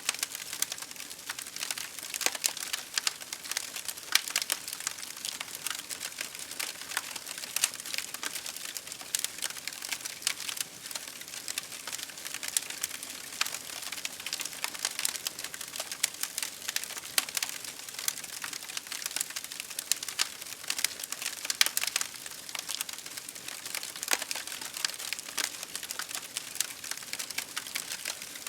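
Campfire crackling steadily, with many irregular sharp pops and snaps over a constant hiss.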